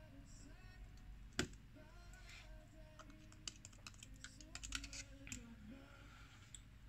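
Small sharp clicks and taps of tools and parts being handled while an iPhone 6 is reassembled. One loud click comes about a second and a half in, and a quick run of clicks follows in the middle, over faint background music.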